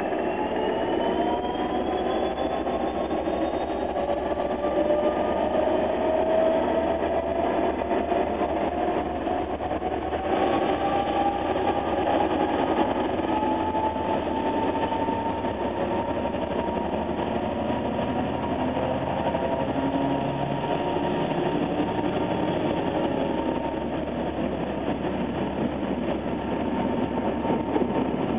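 Irish Rail 201 Class diesel locomotive with its EMD 710 engine hauling an InterCity train past at speed. A whine rises in pitch over the first fifteen seconds or so and then holds steady, over the rumble of the engine and the carriages' wheels on the rails.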